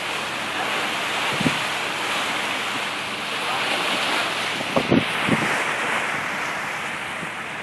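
Steady rush of water along a moving motor boat's hull and wind buffeting the microphone, with a few short low thumps: one about a second and a half in and a quick cluster near the five-second mark.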